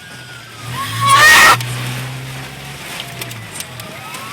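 Honda Civic's engine running steadily inside the cabin while a siren wails in the distance, its pitch falling and then rising again near the end. About a second in, a loud rush of noise.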